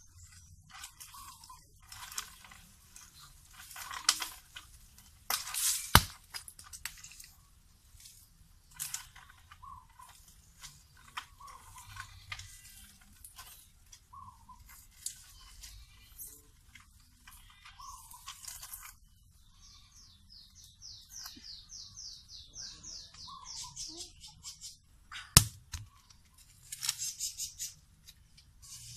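Irregular rustling and scraping of someone climbing a coconut palm, with two sharp knocks and, in the second half, a quick run of short chirps.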